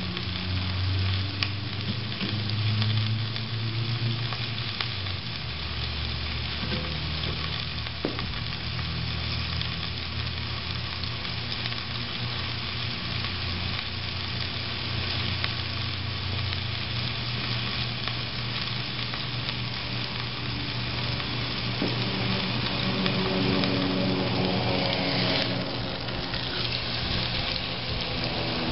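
A Boston butt pork roast searing in hot olive oil in a 14-inch cast iron Dutch oven, with a steady sizzle as the outside browns into a crust.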